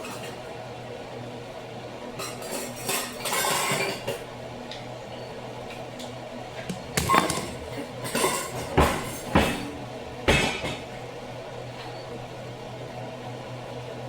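Kitchen dishes and utensils knocking and clinking: a scraping rustle about three seconds in, then several sharp knocks between about seven and ten seconds in, over a steady low hum.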